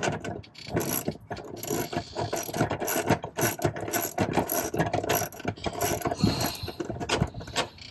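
Ratchet wrench clicking rapidly in quick runs while a fastener on the throttle pedal linkage is worked.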